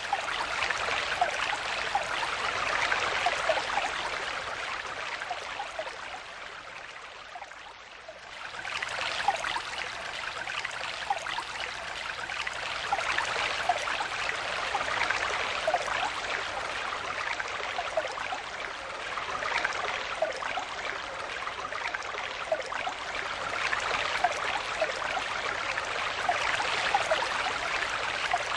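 Stream water flowing steadily, a continuous rushing babble with small bubbling gurgles throughout. It fades down briefly about a quarter of the way in, then comes back to full level.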